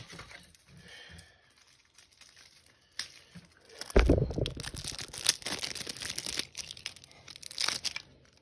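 Packaging being handled and torn open, crinkling and tearing, with a heavy thump about four seconds in. The crinkling goes on for about four seconds and stops just before the end.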